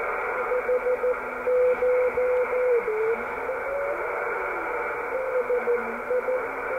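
The Dutch 2 m beacon heard through an Icom IC-910 receiver's loudspeaker: a mid-pitched Morse tone that comes and goes in dashes over steady band hiss, its pitch dipping and sliding back up near the middle. The masthead preamp is switched on, which lifts the weak beacon out of the noise.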